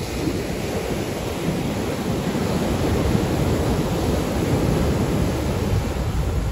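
Surf breaking on the beach, with wind buffeting the microphone.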